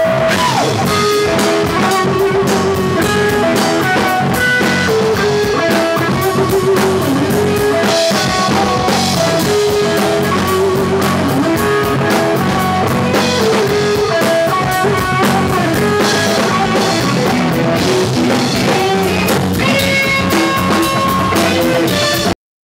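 Rock band music: guitar over a drum kit, cutting off suddenly near the end.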